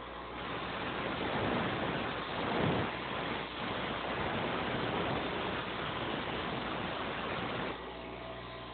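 Electric grinder motor running with a steady hum, and a metal lock-pick blank pressed against the wheel: a hissing grind starts just after the beginning, swells about three seconds in, and stops about a second before the end, leaving the motor hum.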